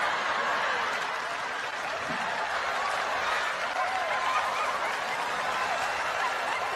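Studio audience laughing and applauding, a steady dense wash of crowd laughter and clapping.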